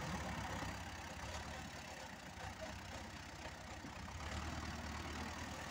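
T-40 tractor's two-cylinder air-cooled diesel engine running steadily while pulling a plough, a low pulsing throb that dips a little in the middle and comes back up near the end.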